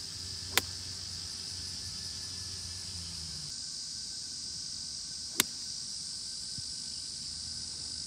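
Two crisp strikes of a golf iron on the ball from waist-high half swings, about five seconds apart, over steady chirring of insects.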